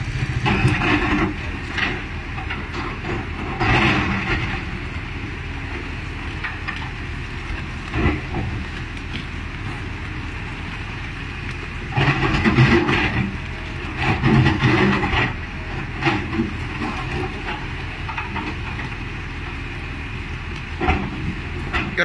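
Kobelco hydraulic excavator's diesel engine running steadily while it digs, growing louder in several surges as the arm and bucket work under load.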